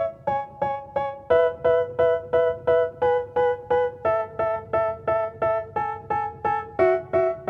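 Background music: a piano-like keyboard playing short repeated chords, about three a second, with the chord changing every few seconds, as the instrumental intro of a hip-hop song.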